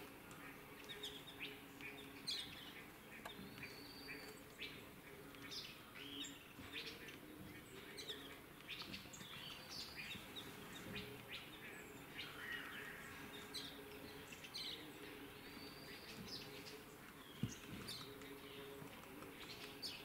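White-throated laughingthrushes calling in a flock: many short, high chirps and brief whistled notes, scattered and overlapping, over a faint steady low hum. One soft knock sounds late on.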